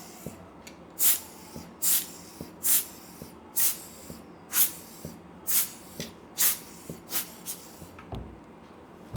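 Hand-squeezed rubber air blower puffing short blasts of air into a camera's gaps to clear dust, about one hiss a second, some nine puffs with small handling clicks between them. The puffs stop near the end, where there is a single dull thump.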